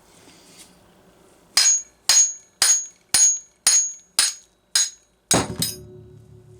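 Hammer blows driving the crankshaft out of a Homelite Super XL chainsaw drivecase, struck straight on the unprotected crankshaft end. About nine sharp metallic strikes come roughly two a second, each with a brief high ring. The last blow is fuller and leaves a lower ring hanging.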